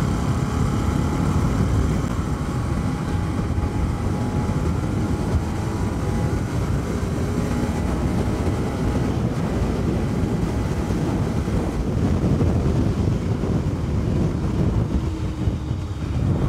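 Bajaj Pulsar NS200's single-cylinder engine pulling under acceleration at road speed, its note climbing slowly in the first half, heard under heavy wind buffeting on the microphone.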